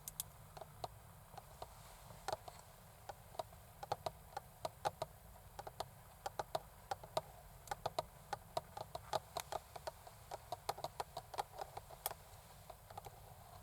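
Long acrylic fingernails tapping, making sharp, irregular clicks, often in quick flurries of several taps.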